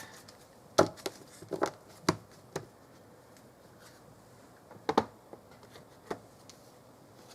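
Oracle cards being handled on a table: a scatter of light taps and clicks, loudest about a second in and again near five seconds.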